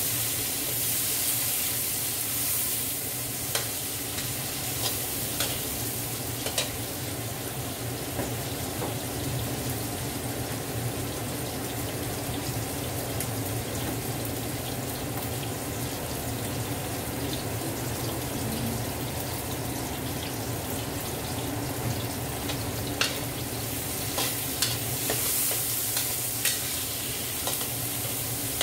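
Onions and red and green chilies frying in oil in a large steel wok, a steady sizzle. A metal ladle clinks and scrapes against the wok in the first several seconds and again near the end.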